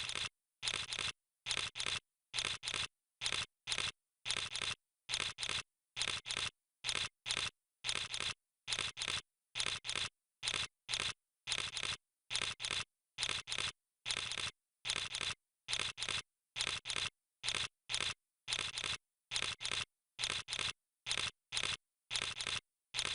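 Camera shutter firing again and again at an even pace, about three releases every two seconds. Each release is a quick double click.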